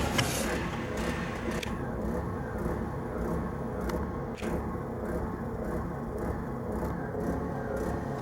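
Steady vehicle rumble with a few light clicks and knocks, cutting off abruptly at the end.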